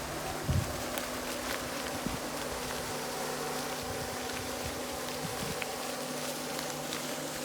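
A steady buzzing drone that holds one pitch throughout, with a low thump about half a second in.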